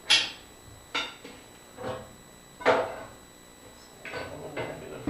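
Metal clanking as steel parts are handled: four sharp knocks with a short ring, about a second apart, then a quicker run of lighter clinks near the end.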